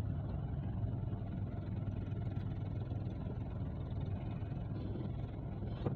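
Car interior while driving: the engine's steady low hum and road noise heard inside the cabin.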